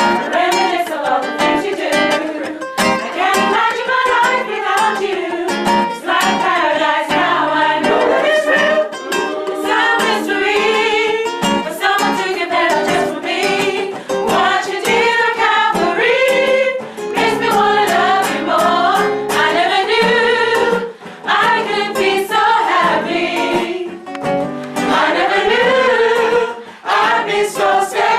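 A gospel choir singing in parts, with a strummed acoustic guitar accompanying it.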